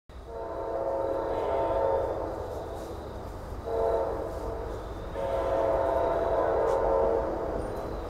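Nathan K5LA five-chime air horn on a CSX GE AC44CW freight locomotive sounding three blasts as a chord of several tones: long, short, then long.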